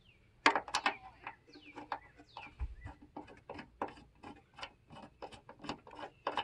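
A run of small, irregular metallic clicks and taps as a bolt in a truck bed-rail mounting track is worked by hand with a hex key.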